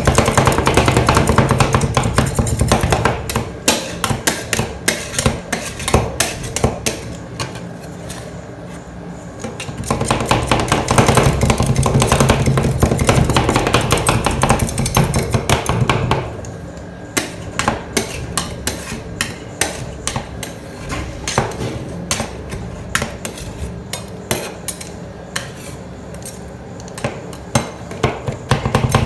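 Two steel spatulas chopping and tapping on a stainless-steel ice cream cold plate, working an Oreo and strawberry cheesecake mixture: rapid, uneven metallic clicks and clacks. At the start, and again for several seconds in the middle, they give way to a louder, steadier noise while the mixture is pushed and spread across the plate.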